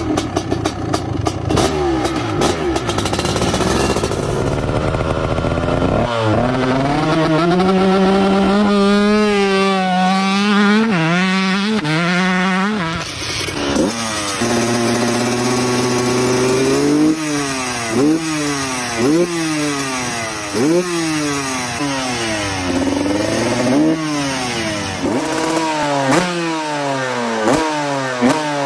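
Two-stroke dirt bike engines revving. A dense engine noise gives way about six seconds in to a held, wavering rev. After an abrupt change near thirteen seconds the revs climb and drop sharply over and over, about once a second.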